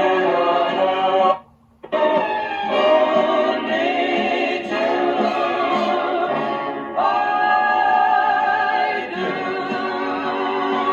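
Vocal music with singing played from a vinyl record on a vintage Trav-ler record player; the sound drops out for about half a second near the start, then the singing carries on.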